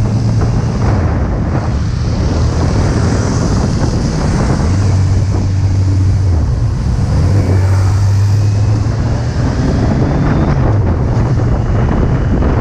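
Heavy wind noise on the camera's microphone while riding a Kawasaki Z800, its inline-four engine humming low underneath, the hum swelling and easing several times as the throttle changes.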